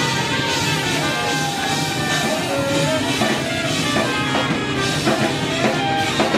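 Live soul and R&B band playing an instrumental stretch: electric guitar over a drum kit and bass, with a steady beat.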